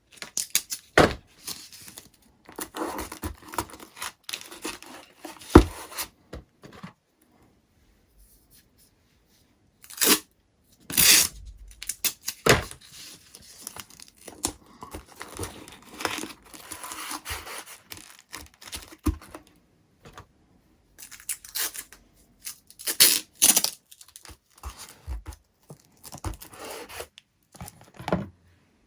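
Masking tape being pulled off the roll and torn off in strips, in a run of short ripping bursts with pauses between.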